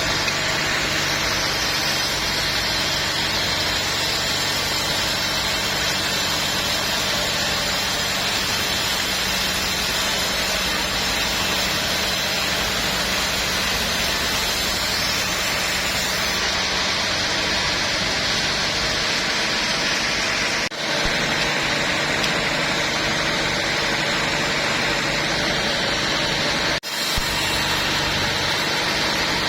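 Sawmill machinery running steadily, a constant engine-like hum under a broad mechanical noise, breaking off for an instant twice.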